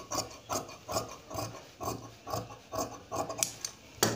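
Large tailoring scissors snipping through cloth in short cuts, about three a second, trimming a curved armhole. A sharp knock near the end.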